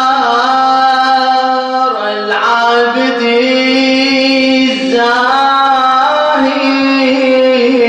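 A male radood's voice chanting an elegy solo, with no instruments, in long held notes that waver and slide from one pitch to the next.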